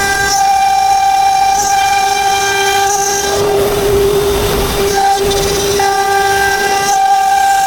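CNC router spindle running with a steady high-pitched whine. For about a second and a half midway the whine wavers and a rougher rushing noise comes in.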